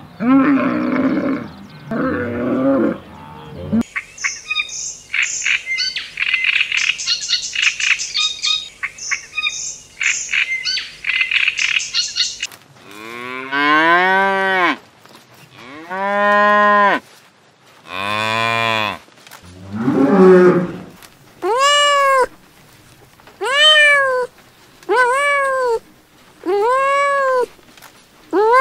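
A sequence of animal calls. A Bactrian camel grumbles for the first few seconds. Then comes a long stretch of high, rapid chirping. After that a cow moos several long times. Near the end a kitten meows in short calls, about one every second and a half.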